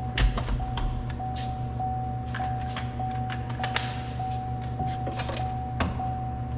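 Scattered light clicks and taps of hand tools working on a car door's inner frame, as Phillips screws are being removed, over a steady low hum and a high, steady tone that breaks briefly about every 0.6 s.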